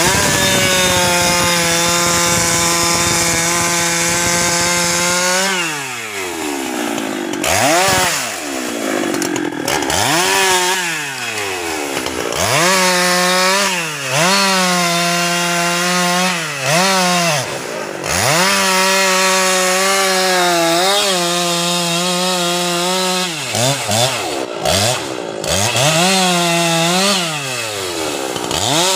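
Husqvarna 390 XP two-stroke chainsaw cutting through teak limbs: the engine is held at full throttle for a long cut of about five seconds, then drops back and revs up again for a string of shorter cuts of one to three seconds each.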